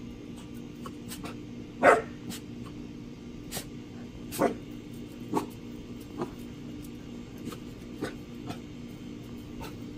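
Great Dane puppies barking in short, scattered yaps, about nine in all, the loudest about two seconds in and another loud one midway.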